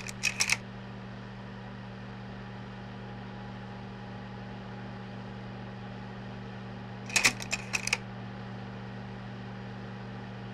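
Steady hum of a running projector, with a quick cluster of mechanical clicks at the very start and again about seven seconds in as the slide advances to the next frame.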